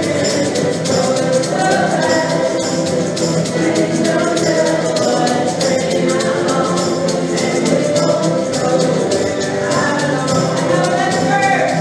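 Acoustic guitars strumming a folk song together, with a group of voices singing along and a tambourine shaking in time.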